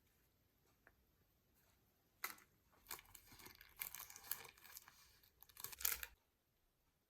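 Plastic wrapping crinkling and tearing open, a run of rustling crackles lasting about four seconds after a quiet start.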